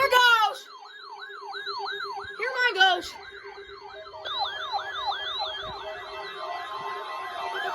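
Several electronic weather-alert radio receivers sounding their siren-like warbling alarms, overlapping. The tones sweep up and down about two and a half times a second over a steady pulsing low tone, and a second alarm joins about four seconds in. Two short loud sweeping bursts come at the start and about two and a half seconds in.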